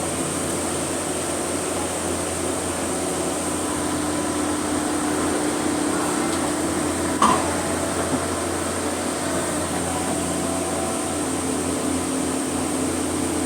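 Steady mechanical hum of the cableway terminal's machinery, heard from inside a gondola cabin waiting to be launched onto the cable, with one sharp clunk about seven seconds in.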